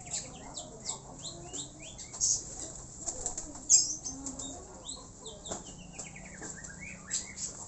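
Pigeons' wings flapping as the birds fly, with a couple of louder flurries, over many short high chirps of small birds.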